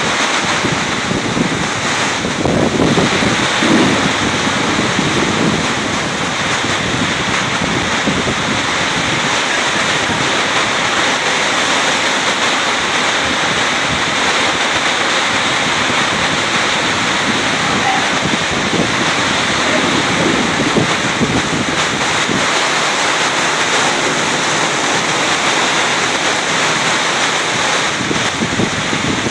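Torrential rain pouring down in strong wind, a loud steady rush of water, with wind buffeting the microphone, heaviest in the first few seconds.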